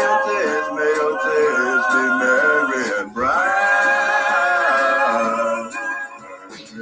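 Boys singing a cappella in an exaggerated, dramatic style, holding one long note. About three seconds in there is a brief break, then a second long held note that fades away near the end.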